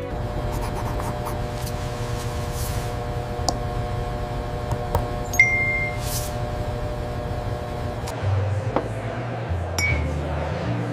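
Soundtrack bed of a steady held drone over a low hum, changing about eight seconds in, with a short electronic beep about five and a half seconds in and a fainter one near the end. Soft whooshes and thin clicks are scattered through it.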